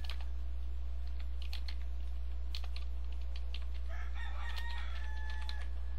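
Computer keyboard keystrokes, scattered clicks as a word is typed. About four seconds in, a brief pitched call sounds in the background for a second and a half. A steady low hum lies beneath it all.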